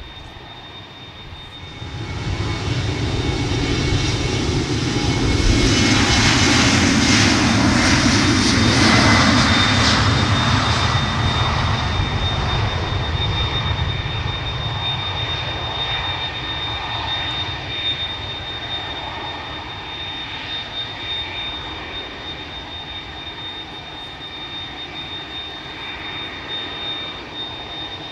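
Jet airliner's engines running at high power close by, building up about two seconds in, loudest a few seconds later, then slowly fading away, with a steady high-pitched whine over the engine noise.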